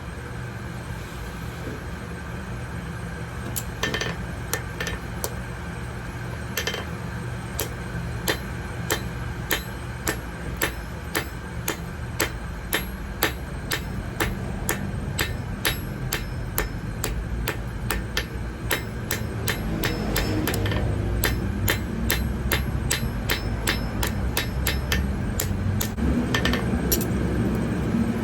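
Hammer blows on metal at an anvil, evenly paced at about two strikes a second, over a steady low rumble that grows louder after the middle.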